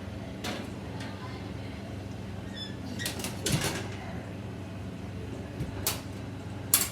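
Kitchen handling sounds: a few sharp knocks and a short sliding clatter around the middle, with the loudest knock near the end, over a steady low hum.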